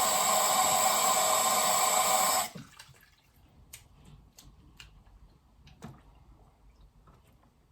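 Kitchen tap running steadily into a bowl, cold water for soaking rice, then turned off sharply about two and a half seconds in. A few faint clicks follow.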